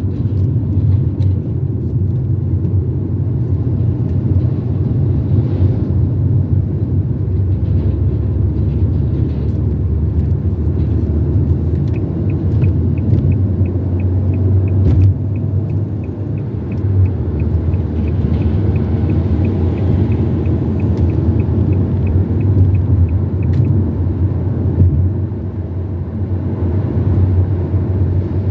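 Steady low road and engine rumble of a car driving on the highway, heard from inside. About twelve seconds in, a run of regular high ticks, about three a second, starts and lasts about eleven seconds before stopping.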